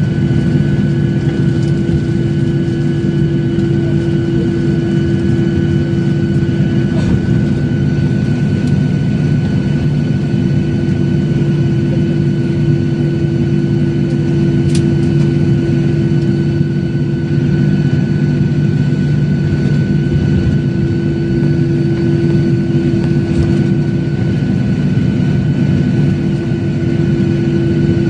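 Lion Air jet airliner's engines running at idle as it taxis after landing, heard inside the passenger cabin: a loud, steady drone with a constant hum.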